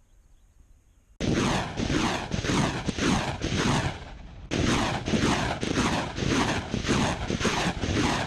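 BM-21 Grad multiple rocket launcher firing a salvo of 122 mm rockets in rapid succession, about two to three launches a second, each a sharp blast with a rushing sound falling in pitch. The salvo starts suddenly about a second in and pauses briefly a little past the middle before going on.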